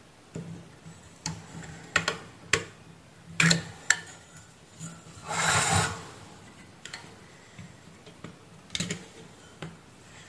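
Sharp clicks and light knocks of pliers and hands working a variable frequency drive's circuit board loose, with a short scraping rustle a little past the middle as the board comes out, then a few more taps.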